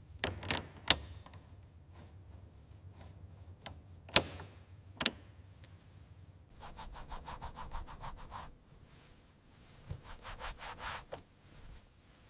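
A few sharp clicks and taps, then two spells of quick back-and-forth rubbing or scrubbing strokes, several a second, from something being worked by hand over a surface.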